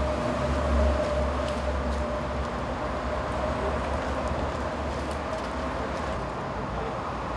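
Steady hum and low rumble of tunnel-site machinery. The rumble eases off about two seconds in, and a few faint clicks sound over it.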